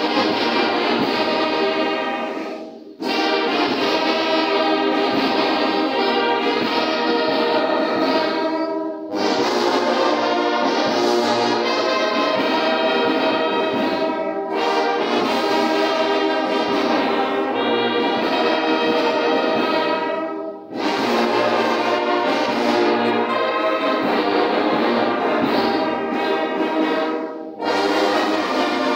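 Brass band playing a hymn in long, held phrases, with a short break about every six seconds.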